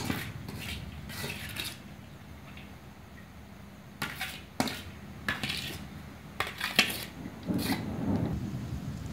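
Metal plate clinking and scraping against the rim of an aluminium cooking pot as boiled rice is tipped and spread into it: a series of separate clinks, most of them in the second half. A low steady rumble runs underneath.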